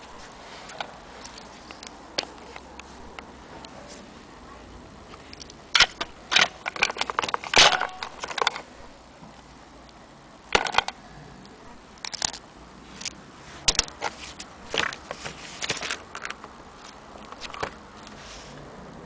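Handling noise: scattered clicks, taps and rattles of plastic parts and a power cord being moved by hand. The clicks come in clusters, densest about a third of the way in and again near the middle and later.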